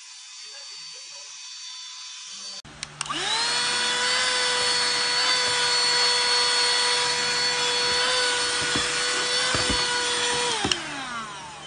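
Ruienbao cordless mini vacuum cleaner switched on with a click a little under three seconds in. Its motor whines up to speed, runs steadily with a high whine for about seven seconds, then is switched off and spins down near the end.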